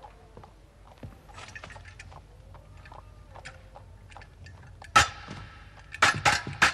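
Fencing swords clashing: light clinks and scrapes of the blades at first, then a sharp clash about five seconds in and a quick run of blade strikes, about three a second, near the end.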